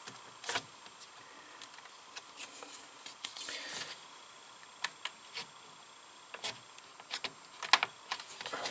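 Scattered light clicks and taps of a 25-pin ribbon cable connector and its grey flat cable being handled and pressed into place on a CNC controller board, with a brief rustle of the cable about three and a half seconds in.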